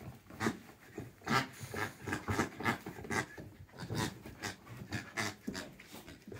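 Border collies panting and rummaging in a cardboard box of soft toys: a string of quick, irregular breaths and rustles.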